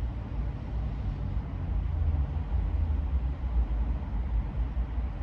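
Steady low rumble and hiss of a running vehicle, a little louder from about two seconds in.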